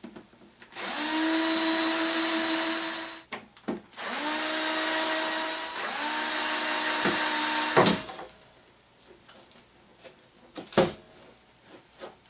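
Power drill running three times for about two seconds each, its motor whine rising briefly as it spins up and then holding steady. After that come a few light clicks and handling knocks.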